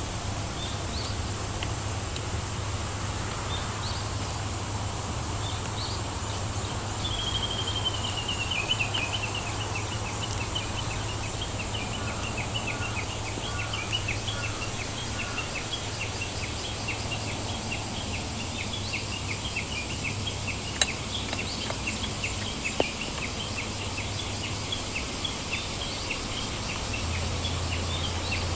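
A small bird calling over a steady water hiss: a quick descending trill about seven seconds in, then a long run of short repeated chirps, two or three a second.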